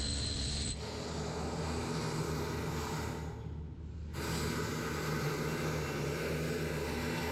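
Steady welding noise: the hissing crackle of a welding arc over the low hum of a welding machine. The hiss drops away for about a second, roughly three seconds in, then comes back.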